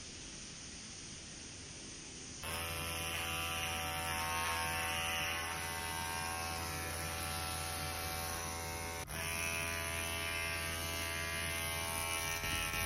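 A Droplette handheld mist-on skincare device switches on about two seconds in and runs with a steady electric buzz and a hiss while it is held against the neck. The sound drops out for a moment once, a little past the middle.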